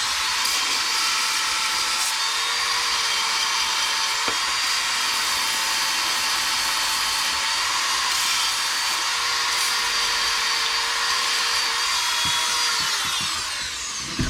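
Wood lathe running steadily with a pine blank spinning while it is cleaned up to remove pine resin. Near the end the pitch falls as the lathe winds down.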